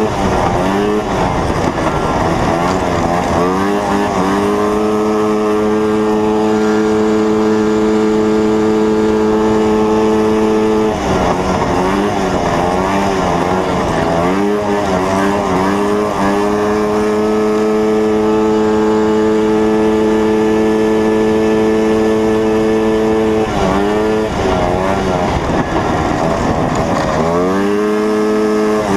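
1974 Yamaha snowmobile's two-stroke engine running hard, heard from onboard. It holds a steady high pitch on the straights and wavers up and down three times as the throttle is worked through the corners of the oval.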